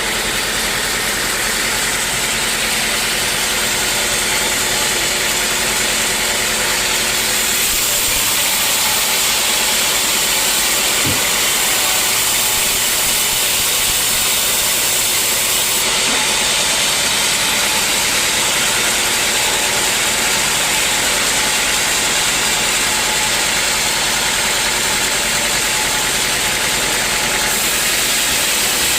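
Sawmill saw running steadily, a continuous loud mechanical noise with a strong high hiss.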